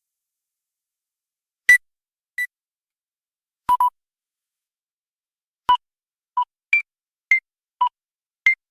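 Autorefractor alignment beeps: about ten short electronic beeps, some higher and some lower in pitch, unevenly spaced and coming faster in the second half. A few start with a faint click.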